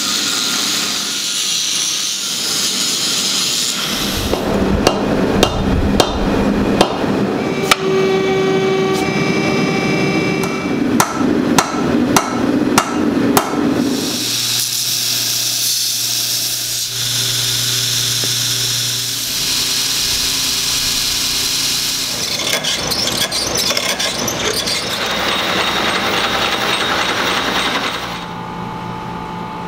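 Angle grinder cutting into steel, then a run of irregular hammer blows on hot steel on an anvil, then shop machinery running steadily with a low hum.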